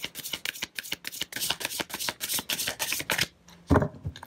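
Tarot cards being shuffled by hand: a quick run of card flicks, about seven or eight a second, that stops about three seconds in. A single loud thump follows near the end.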